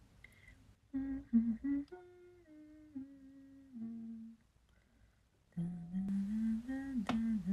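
A woman humming a slow tune in held notes that step down in pitch, breaking off about halfway through and then starting again. A single sharp click comes near the end.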